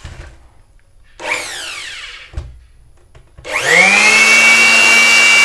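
Mailtank SH-15 electric hand blower: about a second in, its motor runs briefly and whines down. Then comes a click, and at about three and a half seconds the motor spins up quickly and runs at full speed with a loud, steady whine.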